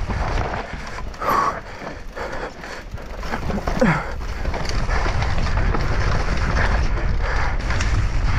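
Enduro mountain bike descending rough forest singletrack at speed: tyres rumbling over dirt, rocks and leaves, with constant rattling knocks from the bike and wind buffeting the microphone.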